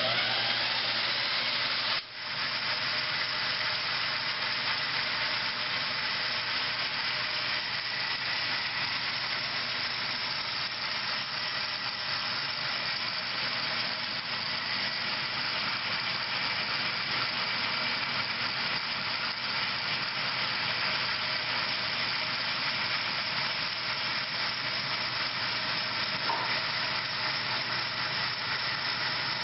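Antique Baxter Machine Co. No. 3 36-inch band saw, driven by a 3 hp single-phase electric motor, running steadily with an even whirring hiss from its wheels and blade.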